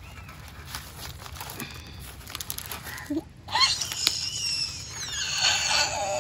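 Crinkling rustle of a banana-leaf parcel of fried sardines being unwrapped. From about halfway in, a small child's high-pitched squealing voice comes in and is the loudest sound.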